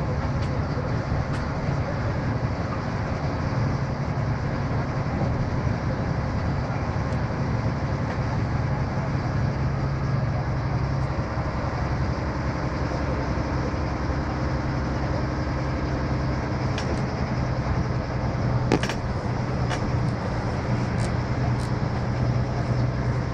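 Volvo B7R coach's diesel engine running steadily at low speed, heard from inside the passenger cabin as a constant low drone. A few sharp clicks or rattles come in the second half, the loudest about three-quarters of the way through.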